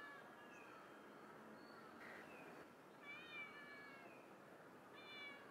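A cat meowing faintly, several short calls: a brief one just after the start, a longer one about three seconds in and another near the end.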